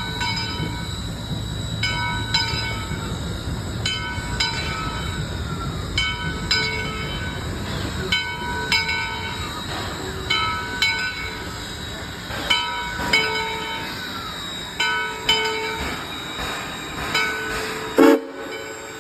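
Train bell ringing in slow, repeated strikes, each a short ringing chord, over the low rumble of the train. A louder sound comes near the end, and then everything drops quieter.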